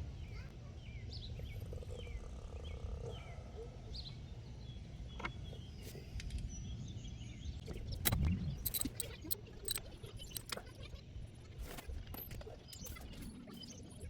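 Outdoor background rumble with bird chirps in the first half, then scattered sharp clicks and knocks in the second half.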